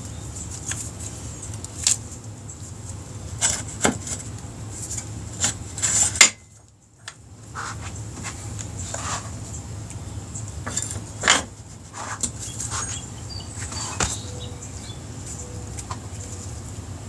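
Scattered metallic clinks and knocks, with a few louder knocks, as the motorcycle's rear wheel, spacers and axle are handled and lined up. A steady low hum runs underneath, and the sound cuts out for about a second around six seconds in.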